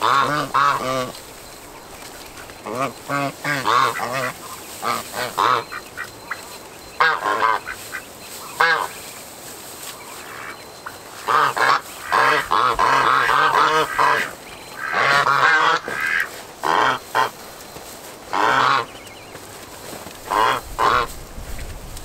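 Domestic white geese honking in repeated short calls, several birds at once, busiest around the middle.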